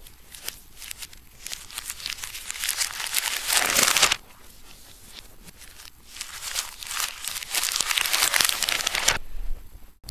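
Paper crinkling as it is worked in the hands, in two long crackly stretches; the first cuts off sharply about four seconds in.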